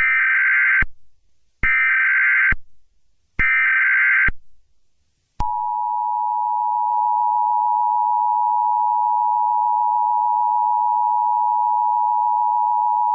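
Emergency Alert System tones: three screeching digital header bursts of about a second each, then, about five seconds in, the steady two-tone attention signal starts and holds.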